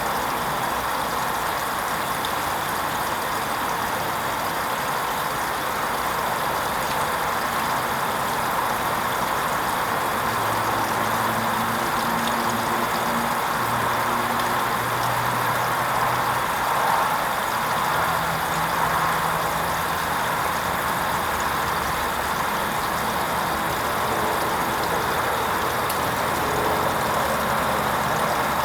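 Hoover Vision HVP16 washing machine running a wool rinse cycle: a steady mechanical whirr with a low motor hum. From about ten seconds in, the hum steps up and down in pitch as the motor changes speed.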